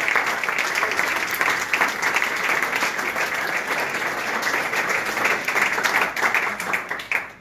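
Audience applause, a dense crowd of hands clapping, which dies away quickly near the end.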